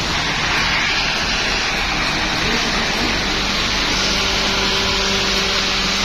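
Heavy rain pouring down, a dense steady hiss. From about four seconds in, a steady low hum joins it.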